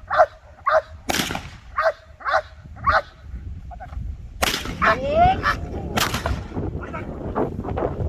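Dog barking in quick repeated barks, about two a second, then more broken barks and a rising yelp, during protection-work training. Several sharp cracks cut through the barking.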